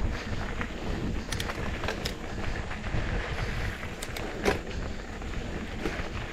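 Mountain bike rolling over a rough dirt-and-stone trail: a steady rumble of tyres and wind on the microphone, with scattered clicks and rattles from the bike, and one louder clack about two-thirds of the way through.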